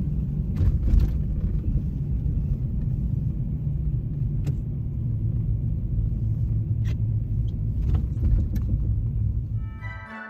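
Steady low rumble of a car driving slowly on a snow-covered street, heard from inside the cabin, with a few faint clicks. Music comes in near the end.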